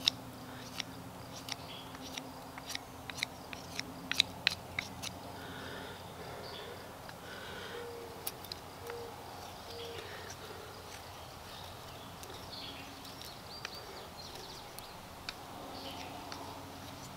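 A knife shaving the point of a wooden bow drill spindle, making a run of light, quick clicks over the first five seconds. Around the middle a bird gives a few soft, low hooting notes, with other birds chirping faintly in the background.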